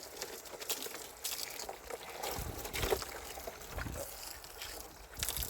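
Water sloshing and trickling in irregular splashes, as during washing.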